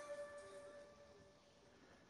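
Background music fading out: a held wind-instrument note dies away over the first second, then near silence.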